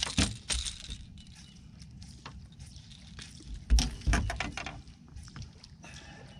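Handling noises from unhooking a freshly caught bass in a boat: scattered knocks and light clinks, with a cluster of louder thumps about four seconds in.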